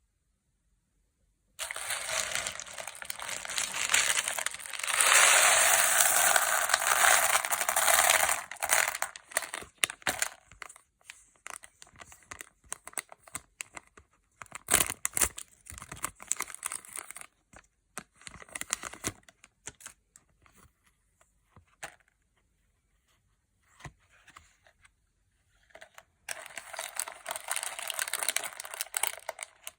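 Crinkling and tearing of a thin material being handled and pulled apart. It is loudest in the first several seconds, breaks into scattered crackles and taps with pauses, and returns as a stretch of crinkling near the end.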